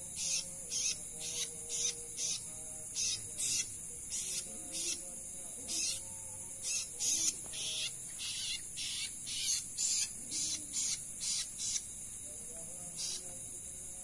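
Night insect chorus: a steady high-pitched drone with short chirps repeating irregularly, roughly two a second.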